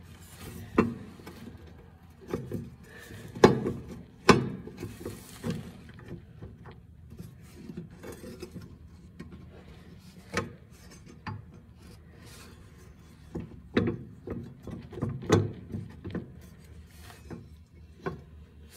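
A lawn mower blade being handled and fitted back onto its spindle under the mower deck: irregular knocks and clicks of metal on metal, with rubbing and scraping in between.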